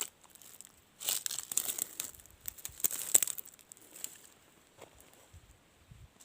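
Dry grass and brush rustling and crackling as they are pushed aside by hand and underfoot, in a run of crackly bursts from about a second in to about four seconds in.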